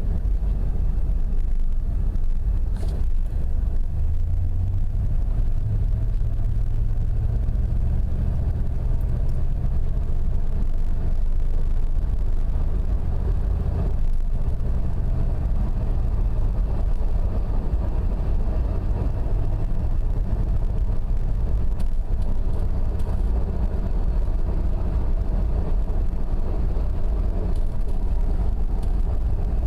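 Steady low drone and rumble from a 1998 Jeep Grand Cherokee ZJ's rear differential, the sign of worn carrier bearings.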